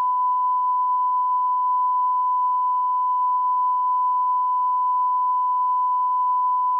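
A single steady electronic beep, a pure tone held unbroken at one pitch and one level throughout.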